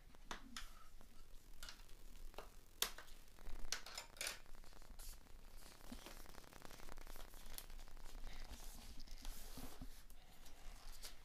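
Scissors cutting the sticky tape that seals a cardboard box, with sharp clicks and the rustle of the box being handled. A fast run of fine ticks comes about six seconds in.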